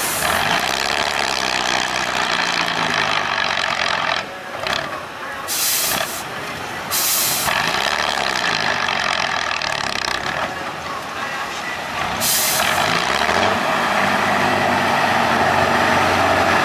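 Engine of an eight-wheeled off-road trial truck revving up and down as it crawls across a steep slope, with short sharp hisses bursting out four times.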